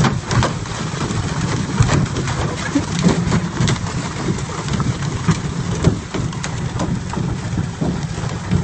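A mass of leaping silver carp splashing down all around a canoe: a constant rain-like rush of splashes full of sharp slaps, over a steady low hum.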